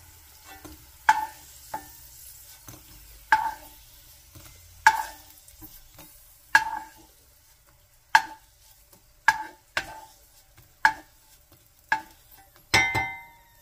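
Wooden spatula knocking against a glass bowl and nonstick pan as fried garlic cloves are scooped out and dropped into the bowl: about ten separate taps, each ringing briefly, with a longer, louder clatter near the end.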